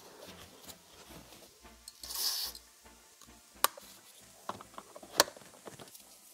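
Handling noises from work on a car seat's base: a short rubbing rustle about two seconds in, then two sharp clicks of tools and plastic parts, with small ticks between.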